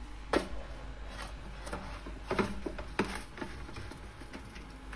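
Thin lavash flatbread rustling and crinkling as a large sheet is laid into a metal baking tray and smoothed down by hand. A scatter of soft brushes and taps about every half second.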